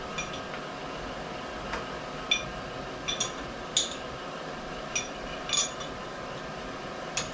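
Irregular metallic clinks, about eight in all, each with a short ring, from a wrench working the clamping bolts on a Brown & Sharpe milling machine's head as they are broken loose.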